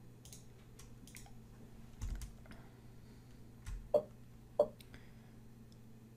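Faint computer keyboard and mouse clicks, scattered and uneven, with two sharper, louder clicks about four seconds in, over a faint steady hum.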